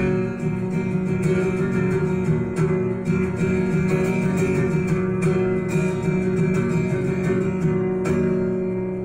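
Acoustic guitar strummed steadily through a song's closing instrumental. About eight seconds in, the strumming stops and a last chord rings and fades.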